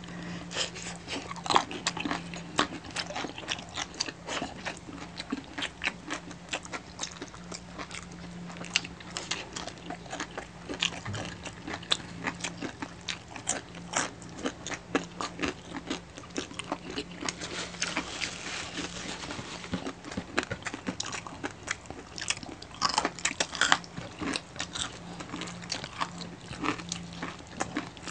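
Two people chewing and crunching crispy pata, a deep-fried pork knuckle eaten by hand: a dense run of crisp crackles and mouth clicks, over a steady low hum.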